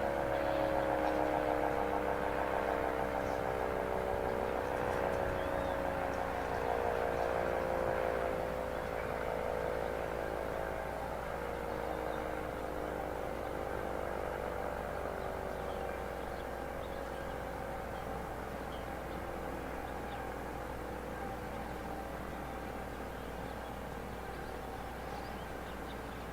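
Red Arrow Model 30 siren winding down: its tone slides slowly lower and fades over the first ten to fifteen seconds, leaving only faint background after that.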